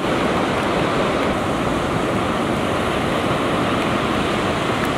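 Surf on a beach: a steady, even rush of wave noise with no breaks.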